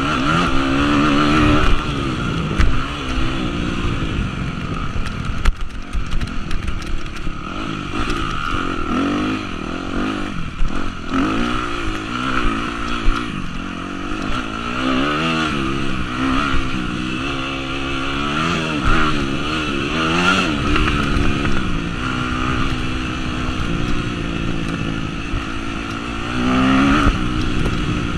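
2003 Yamaha YZ250F's four-stroke single-cylinder engine being ridden hard, revving up and dropping back over and over as the rider works the throttle. Scattered short knocks are heard along the way.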